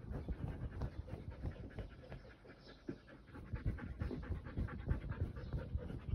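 A Siberian husky lapping water from a plastic bowl, then panting in quick, rhythmic breaths after a short lull.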